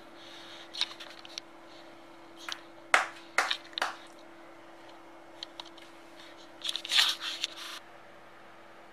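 A paper banknote and a white wrapping being handled: crinkly rustles and sharp crackles, loudest about three seconds in and again about seven seconds in.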